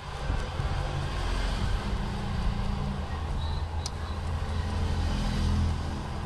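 Low, steady engine-like rumble with a hum, swelling a little near the end, and a single sharp click about four seconds in.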